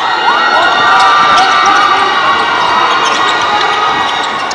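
Live basketball game sound: a basketball dribbled on a hardwood court, sneakers squeaking in short gliding chirps, and crowd noise in the gym.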